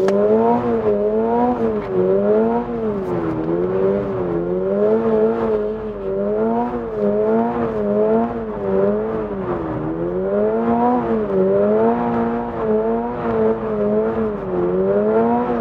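Toyota GR86's 2.4-litre flat-four engine heard from the cabin, revs rising and falling about once a second as the throttle is worked to hold the car in a circle drift.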